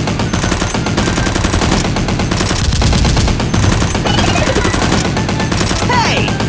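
Automatic-gunfire sound effect: rapid machine-gun fire in several overlapping bursts. It is dubbed in, not the sound of real toy blasters.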